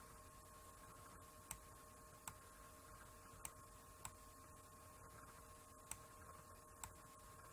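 Six faint computer mouse clicks at irregular intervals, over near-silent room tone with a faint steady hum.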